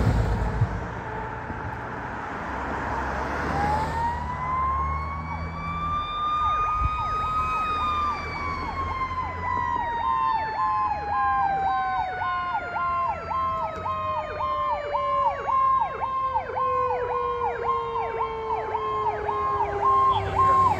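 Fire engine responding with two sirens: one winds up to a high pitch a few seconds in, then slowly winds back down, while a second siren sounds a rapid, repeating yelp from about a third of the way in. The truck's engine rumbles low underneath.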